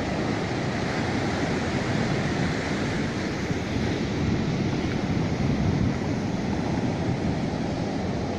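Steady wash of sea surf on the shore, with wind buffeting the microphone.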